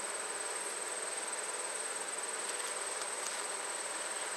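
Honey bees humming steadily around an open hive, with a steady high-pitched insect trill over it.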